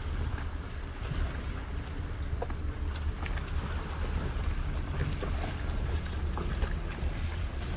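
A SsangYong Actyon squeaking: short high-pitched squeaks recurring irregularly, about once a second, over a steady low rumble.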